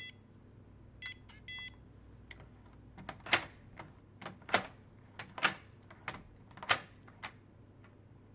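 WeLock Touch61 electronic door lock giving short electronic beeps as it is woken and reads an IC card, the longest beep about one and a half seconds in. From about three seconds in, a series of sharp mechanical clicks about a second apart follow as the unlocked handle is turned.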